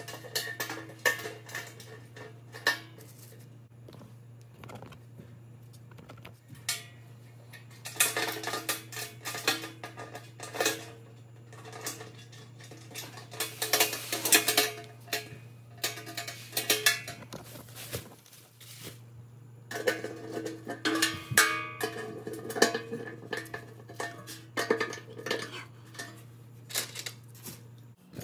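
Metal clinking and clattering as a grill's sheet-metal hood and metal hinge parts are handled and fitted together by hand, in several busy bursts. A steady low hum runs underneath.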